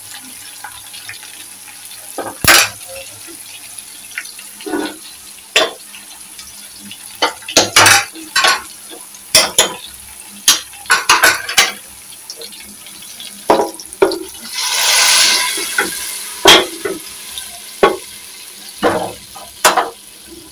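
Metal spoon clinking and scraping irregularly against a frying pan as a tadka of onions, tomatoes and green chillies sizzles in hot oil. About fifteen seconds in comes a louder burst of sizzling, lasting a second or two, as the hot tadka is poured onto the cooked dal.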